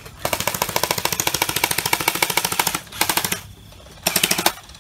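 Gel blaster firing on full auto in three bursts of rapid, even clicks: one long burst of about two and a half seconds, then two short ones.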